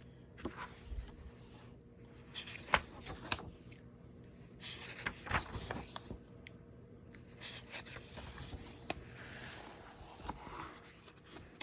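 Pages of a paper picture book being handled and turned: soft rustling and scraping broken by several sharp taps.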